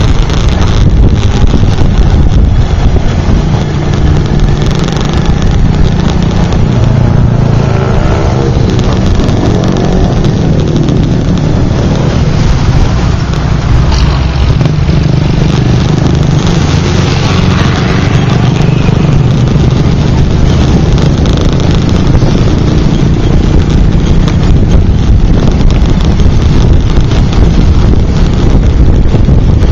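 Motorcycle engine running steadily while riding in traffic, with heavy wind rumble on the microphone. The engine pitch rises and falls about eight to eleven seconds in.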